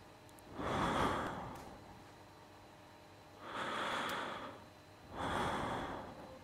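A person's breathing: three long, audible breaths, each about a second long, a couple of seconds apart.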